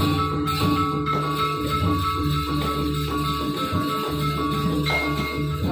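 Balinese gamelan music: struck bronze metallophones and gongs ringing together over steady percussion.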